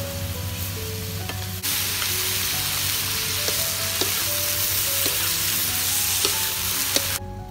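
Chicken intestines and luffa sizzling as they are stir-fried in a wok, with a wooden spatula clicking and scraping against the pan now and then. The sizzle gets louder about two seconds in and drops away abruptly near the end.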